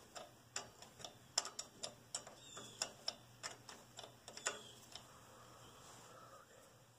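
Ratchet wrench clicking in short, uneven runs as a half-inch nut is turned down on the tractor's carburetor. The clicking stops about four and a half seconds in.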